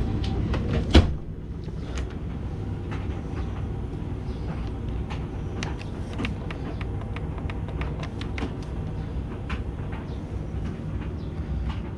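Tumble dryer running, a steady low rumble with scattered light clicks from the tumbling load. A single sharp knock comes about a second in.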